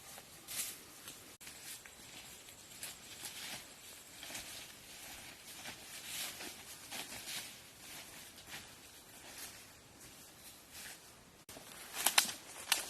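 Irregular soft rustling and crunching, with a louder cluster of sharp crackles near the end.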